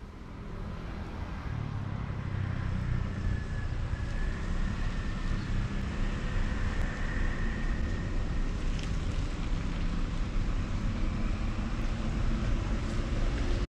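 Steady outdoor street ambience with a low rumble throughout and a faint wavering whine in the middle, picked up unprocessed by a camera's built-in microphone.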